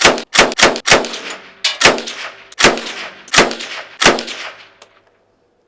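PPSh-41 submachine gun firing 7.62×25 mm Tokarev rounds in semi-automatic, seven shots: three in quick succession, then four more at an even pace about 0.7 s apart, each shot ringing out briefly.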